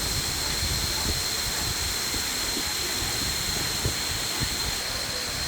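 Waterfall rushing: a steady hiss of falling water, with a thin steady high tone running over it and a couple of small knocks about four seconds in.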